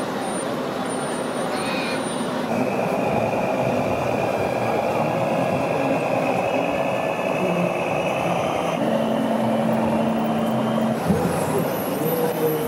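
Radio-controlled model truck running with its engine noise, over the steady din of a crowded exhibition hall. A thin whine holds for several seconds, and a lower hum comes in for about two seconds near the end.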